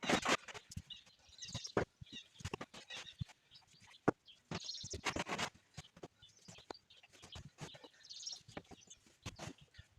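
Shovel scraping and scooping through heavy, wet sawdust: irregular scrapes with short knocks between them.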